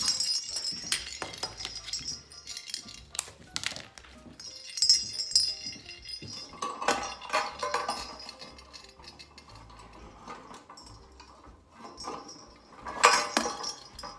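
A strand of large jingle bells jingling and clinking as it is handled and hung over the top of a metal lantern. The sound comes in irregular bursts of rattles and taps, and the loudest knock comes about 13 seconds in.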